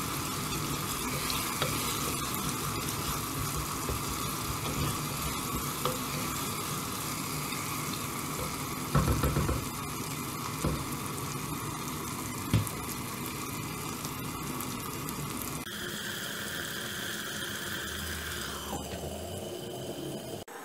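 Onion and tomato frying in oil in a clay pot, a steady sizzle as a wooden spoon stirs them, with two sharp knocks in the middle.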